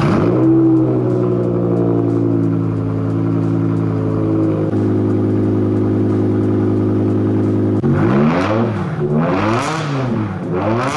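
BMW E60 M5's 5.0-litre S85 V10 running through a straight-through exhaust with gutted primary cats and the secondary cats, resonator and mufflers deleted. It comes on suddenly and settles into a steady idle. In the last few seconds it is revved up and back down three times.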